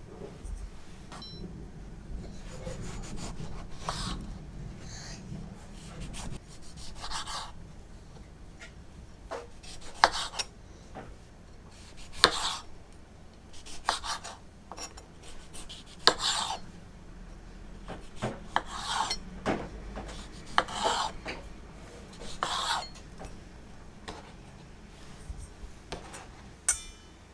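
Kitchen knife cutting tomatoes into wedges on a wooden cutting board: short slicing strokes through the fruit, many ending in a sharp tap of the blade on the board, coming at uneven intervals of a second or two.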